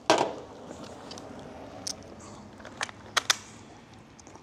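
Sharp clicks and knocks of gear being handled at a shooting bench: one loud click just after the start, then a few lighter clicks toward the end.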